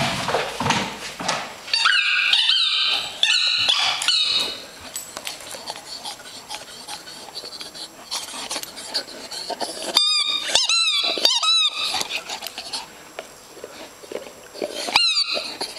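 Squeaky rubber ball squeezed by a dog's bite, squeaking in quick runs of short, high squeaks that bend in pitch. The runs come a couple of seconds in, again about two-thirds through, and once more at the end, with scattered clicks between them.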